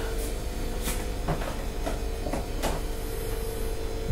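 Onefinity CNC machine's stepper motors whining with a steady tone as the machine runs its touch-probe zeroing routine, with several light clicks in the first few seconds.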